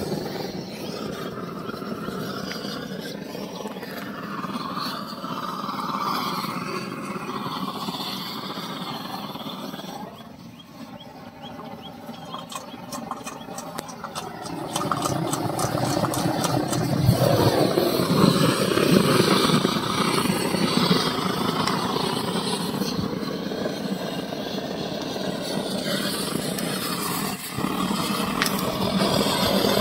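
Brass pressure blowtorch roaring steadily. It drops quieter for a few seconds around the middle while it is hand-pumped, then roars up louder again.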